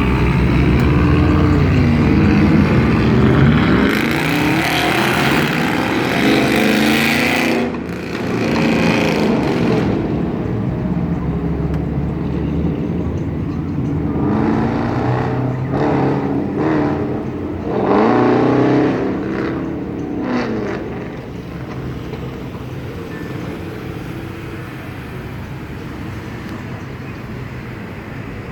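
Loud motor vehicle engines revving and accelerating in street traffic, their pitch rising and falling several times; over the last third only a steadier, quieter traffic noise remains.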